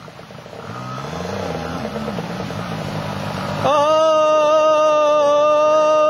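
Small dirt bike engine revving up and down unevenly under throttle in the creek. About two-thirds of the way in, a much louder, steady high-pitched note begins and holds until it cuts off suddenly.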